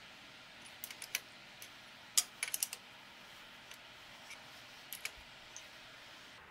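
Open-end spanner clicking and clinking against the clamping nut and metal swivel base of a lathe's compound rest: a scatter of light, sharp metallic clicks, the sharpest about two seconds in.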